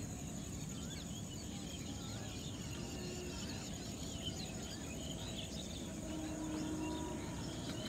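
Countryside morning ambience: many small birds chirping and twittering, over a steady high insect trill.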